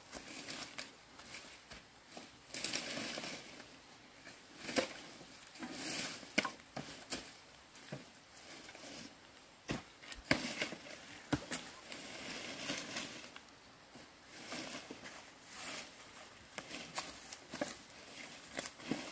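Footsteps crunching and rustling through dry leaves and twigs, with scattered sharp clicks and knocks.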